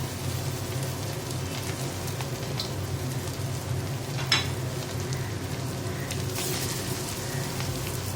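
Cornflour-coated chicken pieces shallow-frying in hot white oil in a kadai, a steady sizzle, with one short sharp tap about four seconds in.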